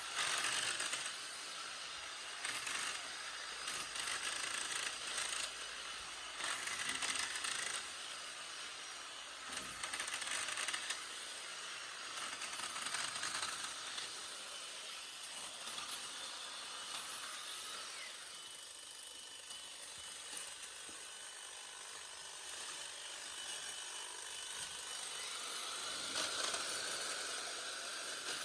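EGO cordless multi-tool with hedge trimmer attachment running, its reciprocating blades chattering as they cut through thick hedge branches, swelling in surges every few seconds as it bites into the wood.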